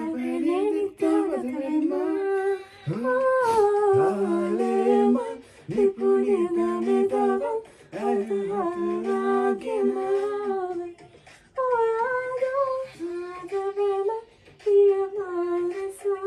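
A person humming a song melody without words or accompaniment, in held, sliding notes that come in phrases of a few seconds with short breaks between them.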